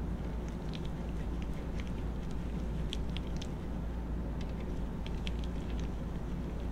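Light, irregular clicking and ticking of a ratchet and extension snugging down ARP connecting-rod cap bolts, over a steady low hum.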